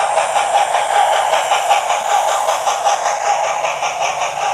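Hornby Duke of Gloucester model locomotive's TTS sound decoder playing steam exhaust chuffing through its small speaker, an even beat of about five chuffs a second, over the steady running hum of the model on the track.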